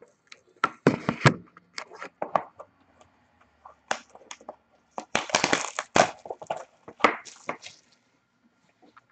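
A cardboard Panini Playbook hockey card box being handled and opened by hand: irregular rustling, scraping and sharp taps of cardboard, with a longer stretch of rustling about five seconds in.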